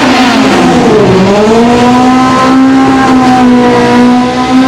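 Drag-racing car's engine running at high revs. Its pitch dips about a second in, climbs back and then holds high and steady, with a brief drop near the end.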